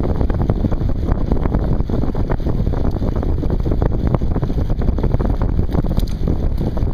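Wind rushing over the microphone of a camera on a moving bicycle, with tyre and road noise and frequent small rattling clicks.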